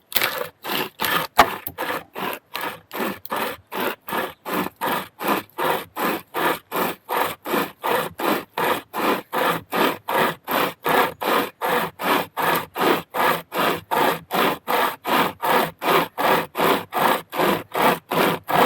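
A hand-powered saw cutting through wood, with steady, even back-and-forth strokes at about two and a half a second.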